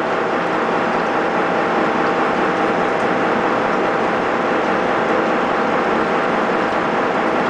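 Gleason 113 hypoid gear generator cutting an 8620 steel spiral bevel gear: the face-mill cutter head's blades cutting steadily through the teeth, a dense continuous mechanical noise over the machine's steady hum.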